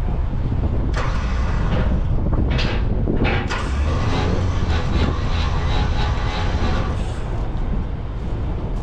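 Moving vehicle's engine and road noise: a steady low rumble, with a few sharper rattles or hisses over it between about one and three and a half seconds in.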